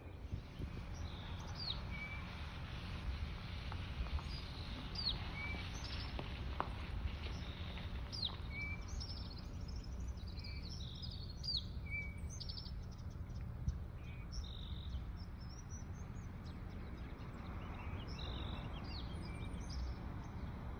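Several wild birds calling, with short high chirps and quick downward-sweeping whistles scattered throughout, one short note recurring every few seconds, over a steady low rumble.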